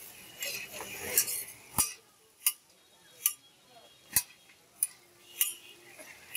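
Metal spatula clanking and scraping against a large flat metal griddle pan as pasta is stirred and tossed, a sharp clank roughly once a second.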